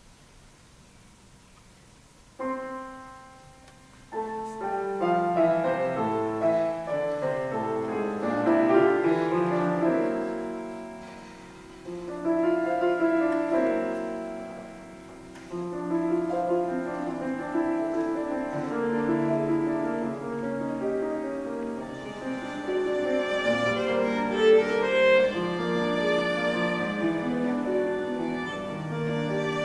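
Violin and grand piano playing a classical piece together. After a brief hush an opening chord sounds about two seconds in, and from about four seconds in the music runs on continuously.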